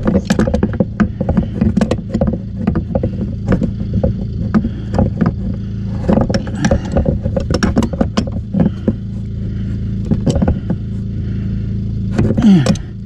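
Clicks, knocks and rustling of hands and a plastic supply fitting being threaded onto the underside of an RV bathroom sink, over a steady low hum. A brief falling tone near the end.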